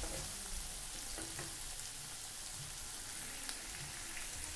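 Chicken liver curry sizzling and simmering in a pan on the stove, a steady hiss, with a couple of faint knocks from the spatula.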